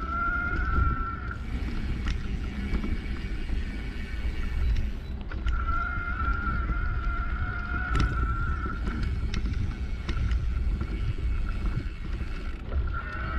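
A bicycle riding over a rough, rutted dirt track, with low wind rumble on the microphone, tyre noise and scattered knocks from bumps. A steady high whine comes in twice, once for about a second at the start and once for about three seconds in the middle.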